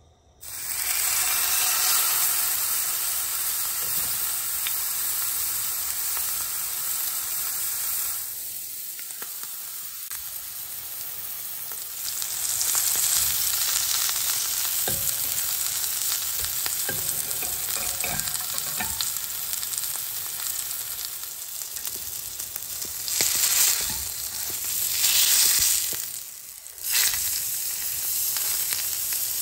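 Filet mignon sizzling in hot oil in a frying pan on high heat, the sizzle starting suddenly as the steak goes into the pan about half a second in. It runs on steadily, swelling a few times and dropping briefly near the end.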